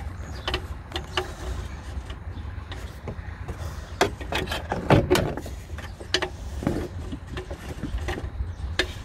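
Hand work fitting a new oxygen sensor and its wiring lead under a car: scattered clicks and knocks, the loudest about four and five seconds in, over a steady low rumble.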